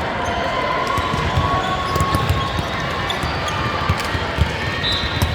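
Balls thudding on a hard gym floor, many short irregular thumps over the steady din of a busy sports hall with a few faint voices.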